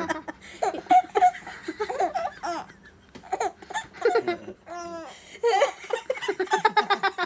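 Laughter in many short, quick bursts, with a baby's high-pitched giggling among it.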